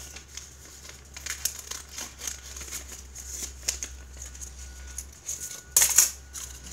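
A small homemade paper blind bag crinkling and rustling as it is handled and opened by hand, in scattered crisp rustles with the loudest burst of crinkling shortly before the end.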